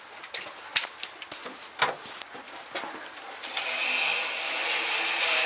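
A few scattered clicks and knocks, then about three and a half seconds in a cordless drill starts boring upward into the steel bus frame: a steady grinding cut with a high whine. The drill is run slowly under heavy pressure, so the bit cuts the steel rather than overheating.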